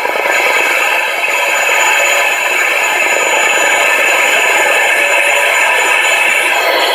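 Analogue radio receiver giving out a loud, steady hiss of static, with no station coming through.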